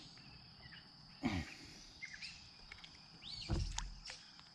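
Riverside ambience: a steady high insect drone with scattered bird chirps. A short low falling sound comes about a second in, and a knock with rustling about three and a half seconds in.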